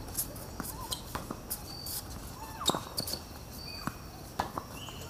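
Tennis rally on a hard court: tennis balls struck by rackets and bouncing on the court, sharp knocks at irregular intervals, the loudest about two and a half seconds in. Faint short high chirps sound in the background.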